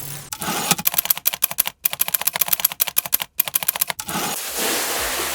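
A quick run of sharp clicks, like typing, breaking off briefly twice, then an even hiss from about four seconds in.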